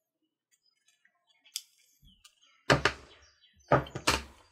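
Hard plastic parts trees from an Axial SCX10 II kit being handled and set down on a table: a faint click, then three sharp plastic knocks in the last two seconds.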